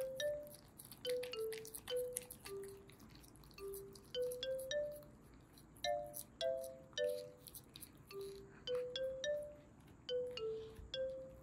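Gentle background music: a slow melody of short, bell-like notes, about two a second, sometimes two notes struck together.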